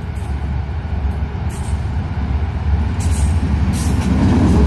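GMU-30 diesel-electric locomotive approaching at full throttle, its engine's deep rumble growing steadily louder as it comes close near the end.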